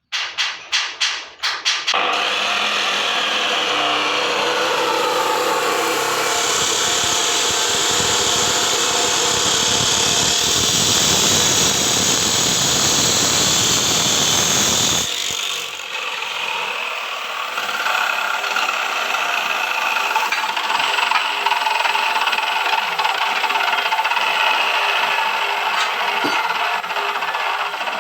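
Abrasive cut-off wheel machine running and cutting, a loud steady grinding whine after a few quick pulses at the start; its sound changes about halfway through, losing its low rumble.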